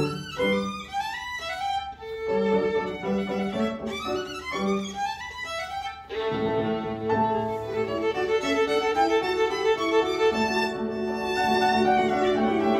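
Solo violin with grand piano accompaniment. Quick running passages come first, then from about six seconds in the violin holds longer notes over sustained piano chords.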